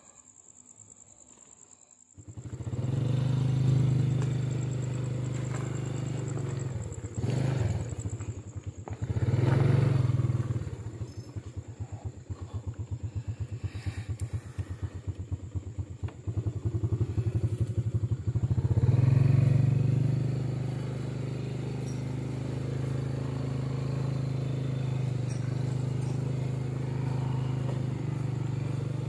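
Motorcycle engine cutting in about two seconds in, then running as the bike is ridden, the revs rising and falling a few times before settling into a steady cruise.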